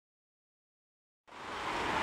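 Silence for just over a second, then road traffic noise fades in and grows steadily louder.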